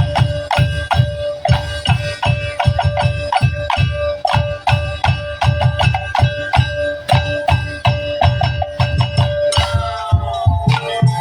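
Tongtek ensemble playing: fast, regular strikes on bamboo and wooden slit drums with deep drum beats, over a steady held high note. Near the end a falling pitched sweep comes in and the melody changes.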